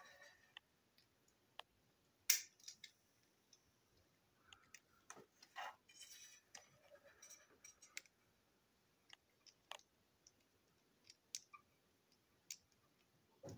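Scattered light clicks and taps of small plastic parts as a toy wheeled chassis is handled. The sharpest click comes about two seconds in, with a brief rustle around six seconds.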